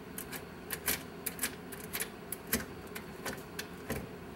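Irregular light metallic clicks and ticks from a small wrench working the retaining nut onto a dash toggle switch's threaded bushing, about a dozen in all.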